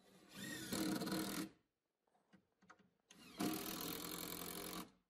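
DeWalt 20V cordless impact driver driving 3-inch deck screws through a 2x4 into plywood, in two runs of a second or so each, the second starting about three seconds in.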